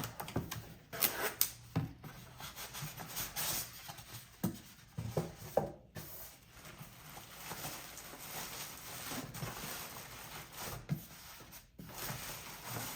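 Cardboard box being opened and handled: rubbing and scraping of cardboard with scattered knocks.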